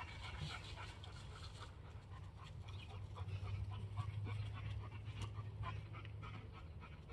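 Red Doberman Pinscher puppy panting in short, irregular breaths over a low steady rumble.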